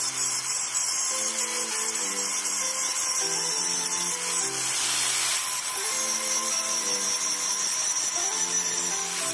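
An angle grinder grinds down the filled repair on a cast aluminium housing: a steady high whine and hiss, loudest about five seconds in. Background music with a repeating low melody plays underneath.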